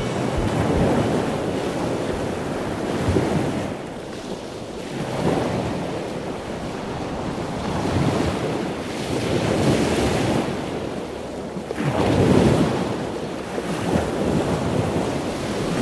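Sea waves washing onto a shore, the surf swelling and fading every few seconds.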